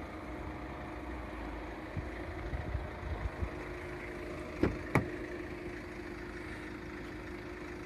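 Tata Nexon's front door opened by its handle: two sharp clicks about half a second apart, some four and a half seconds in, as the latch releases. A steady engine hum runs underneath.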